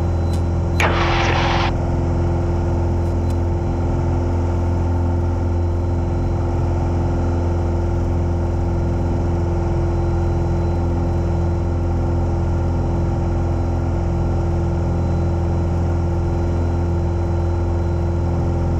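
Light aircraft's piston engine and propeller droning steadily at constant power, heard from inside the cockpit. A short burst of noise cuts across it about a second in.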